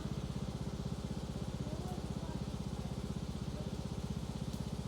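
Riding lawnmower's small engine running steadily, its firing pulses even and unchanging.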